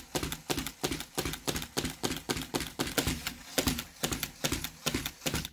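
Motorised Lego Technic car's plastic mechanism clicking rapidly and evenly as it drives, about four clicks a second; the sound cuts off suddenly at the end.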